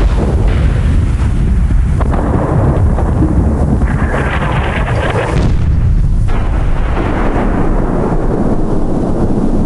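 Missile sound effect: a loud, continuous deep rumbling roar with crackle, carrying on from a sudden blast just before.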